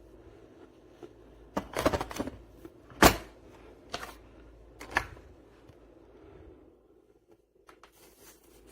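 Hand tools being handled in a tool kit's storage case: a series of clicks and knocks, the loudest a sharp knock about three seconds in, with lighter clicks near the end.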